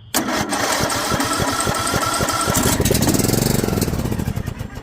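John Deere LA105 lawn tractor engine turned over by its electric starter on starter fluid: steady cranking strokes, then it fires and runs briefly with a rising and falling note before dying near the end. Combustion on starter fluid is the test for a fuel-delivery fault.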